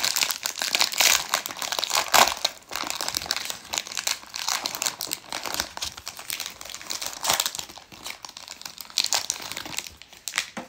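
Wrapper of a Donruss Baseball trading-card pack crinkling and tearing as it is ripped open by hand and pulled off the stack of cards; an irregular, continuous crackle that dies away near the end.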